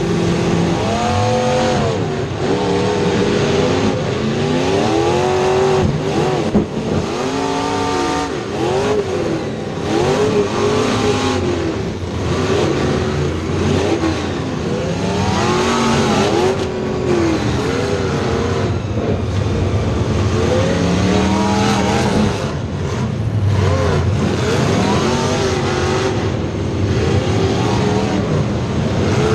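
A field of dirt-track race cars running laps together, several engines at once rising and falling in pitch as they throttle off into the turns and back on down the straights.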